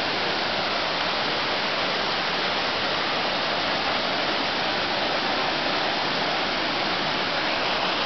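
A small waterfall cascading over rocks into a plunge pool, a steady, even rush of water.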